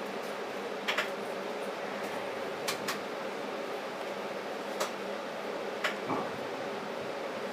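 Interior of a TTC streetcar moving slowly along the track: a steady hum with a few sharp clicks and knocks, singly and in pairs, about a second in, near three seconds, near five and about six seconds in.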